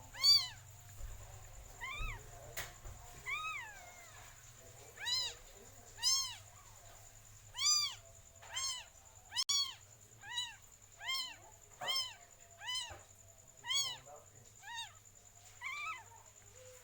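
A cat mewing over and over, about fifteen short calls roughly a second apart, each rising and then falling in pitch.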